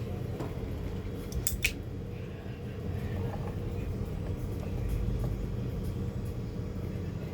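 Steady low background rumble and hum, with two sharp clicks close together about a second and a half in.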